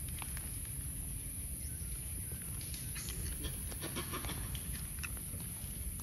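Macaques shifting about on gravel: scattered light clicks and crunches of small stones, densest in the middle, over a steady low wind rumble on the microphone and a steady high hiss.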